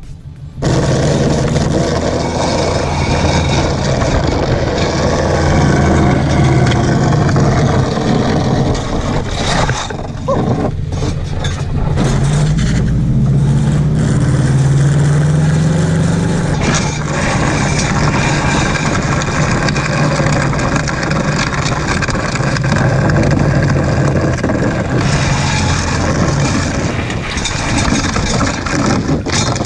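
Scion FR-S's 2.0-litre flat-four boxer engine, fitted with catless unequal-length headers and a muffler delete, running loudly as the car drives, with the revs rising for a few seconds around the middle.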